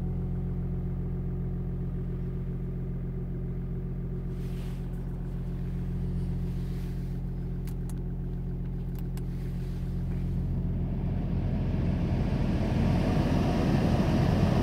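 Audi A7 3.0 TDI V6 diesel idling steadily after a cold start at −11.5 °C, heard from inside the cabin. Midway come a few clicks of the climate-control buttons, then a rising rush of air as the heater blower speeds up.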